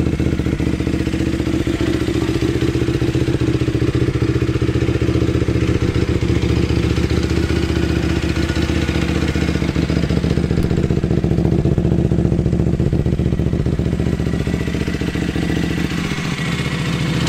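Sport quad (ATV) engine idling steadily, with a slight change in tone near the end.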